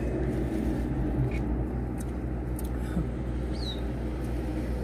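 Steady low rumble of a car idling, heard from inside the cabin. A few faint clicks and a short high chirp near the end sit on top of it.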